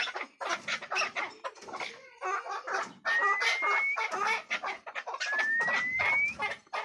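Chukar partridge calling in rapid runs of short clucking chuk notes. A thin rising whistle cuts in twice, about three and five seconds in.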